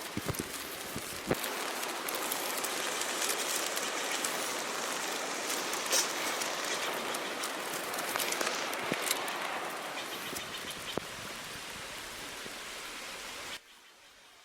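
Steady hiss of heavy rain with many scattered drop ticks close to the microphone. It cuts off suddenly near the end.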